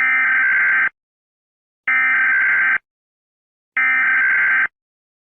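Three identical Emergency Alert System SAME header bursts: harsh digital data screeches, each just under a second long, about two seconds apart. They are the coded header that opens an emergency alert.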